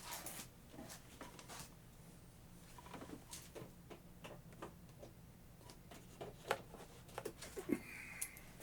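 Faint, scattered clicks, taps and rubbing from handling a freshly reassembled angle grinder, over a steady low hum.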